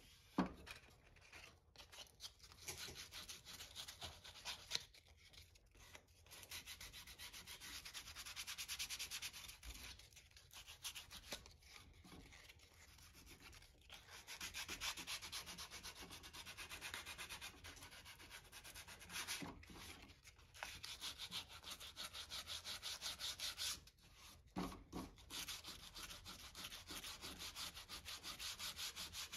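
Hand sanding of the wooden handle of an antique crosscut logging saw with a small piece of sandpaper: quick back-and-forth scratching strokes, stopping briefly several times.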